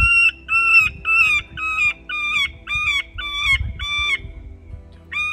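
A predator call, used to lure coyotes, plays a repeated squawking distress cry at about two cries a second. The cries are identical, each rising and falling in pitch. The calling breaks off about four seconds in, and one more cry comes near the end.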